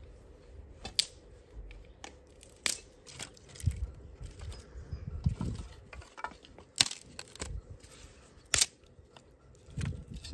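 Thin wooden sticks being handled and knocked together: irregular sharp clacks, the loudest about seven and eight and a half seconds in, among low thuds and scraping against the ground.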